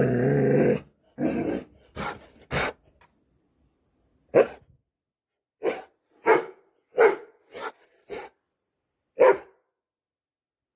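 Red Doberman barking: a drawn-out call that breaks off about a second in, then about ten short, sharp barks, irregularly spaced roughly a second apart.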